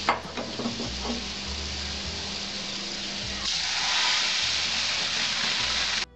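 Mustard oil sizzling in a kadai with dried red chillies and chopped garlic frying in it; about three and a half seconds in, the sizzle turns louder and hissier as cooked masoor dal with jute leaves is poured into the hot tempering. It cuts off suddenly near the end.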